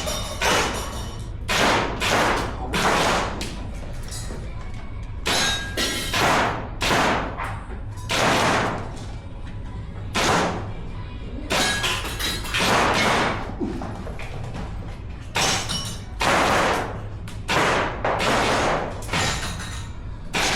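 Rifle shots being fired on a range, irregularly at about one a second, each shot echoing briefly.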